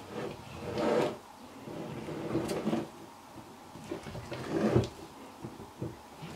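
Silicone spatula folding sifted flour into thick chocolate cookie dough in a glass bowl, scraping along the bowl's sides in three slow sweeps, roughly two seconds apart.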